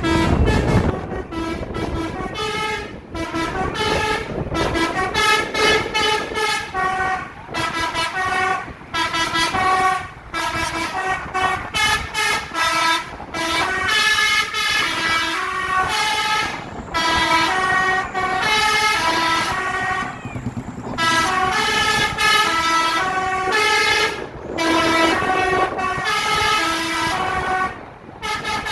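Telolet musical bus horn playing a tune of short stepped notes, the phrases repeated over and over with brief breaks between them.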